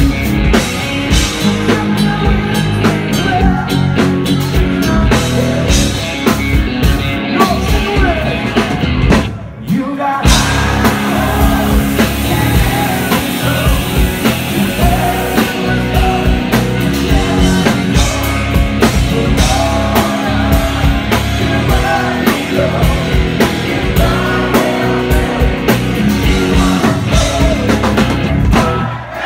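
Live rock band playing at full volume: electric guitar, bass, drums and keyboards, with a male lead vocal. The band drops out briefly about nine seconds in, then comes straight back in.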